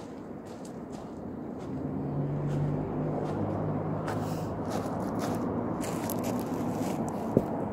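Footsteps in flip-flops on loose garden gravel, close to the microphone, over a steady low hum; a single sharp knock near the end.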